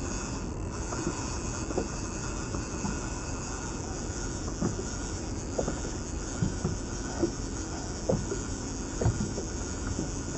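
Small fishing boat under way: a steady engine and water drone, with irregular low knocks every half second to a second.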